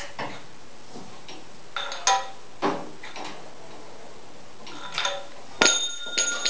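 Scattered metallic clinks and knocks of tools and parts being handled on an old stationary gas engine. About five and a half seconds in comes a sharp metal clang that rings on.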